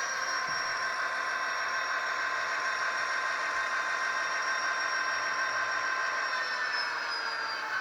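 HO-scale model train running: the motors of two GP50 model locomotives whine steadily, with the wheels of the wood chip hoppers rolling on the track. The whine drifts slightly lower in pitch.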